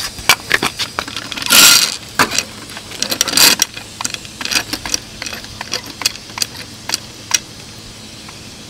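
Pittsburgh steel floor jack being rolled under a car and pumped up to lift the engine by its oil pan with a wooden block: metallic clanks and clicks, with two short scraping noises in the first few seconds. The clicks thin out near the end.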